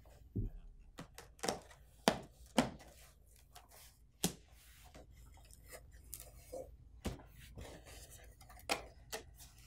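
Cardboard printer box being opened by hand: top flaps lifted and folded back, with scattered cardboard scrapes, taps and rustles, about ten short sounds in all.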